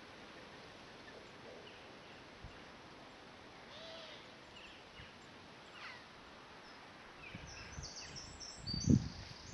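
Quiet outdoor ambience with a few faint, short bird chirps scattered through. Near the end a run of low thumps or rumbles comes in, the loudest just before the end.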